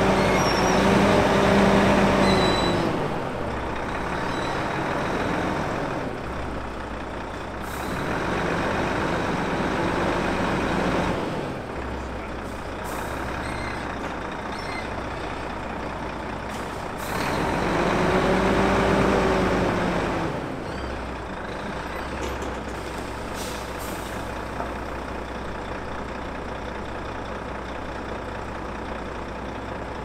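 Diesel engine of a Volvo lorry running as it slowly manoeuvres backwards, revving up and easing off twice, near the start and about 17 seconds in. Several short hisses of air come from its brakes.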